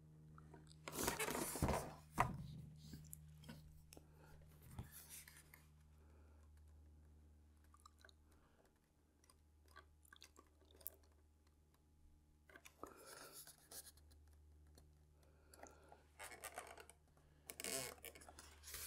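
Hands handling an EPO foam model-aircraft wing and a plastic glue bottle: brief rustles and scrapes of foam and plastic, the loudest a second or two in, with a faint steady hum between them.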